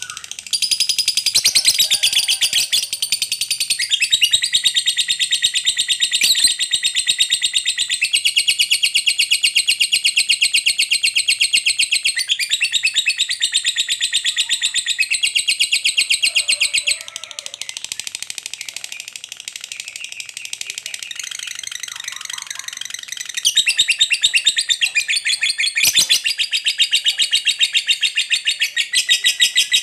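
Lovebird in full song, giving the long unbroken ngekek chatter: a shrill stream of very rapid repeated notes that runs on without a pause. It eases off somewhat in the middle for several seconds, then comes back loud.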